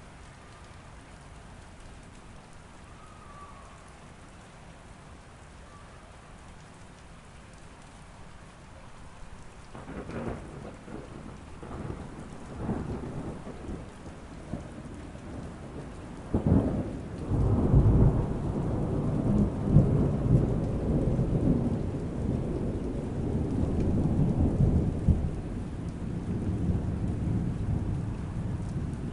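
Steady rain falling. Thunder starts crackling about ten seconds in, then breaks with a sharp crack about sixteen seconds in and rolls on as a long, loud, low rumble over the rain.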